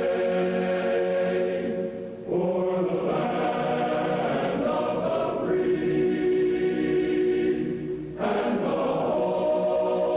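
Choral music: voices holding long, sustained chords that change abruptly about two seconds in and again about eight seconds in.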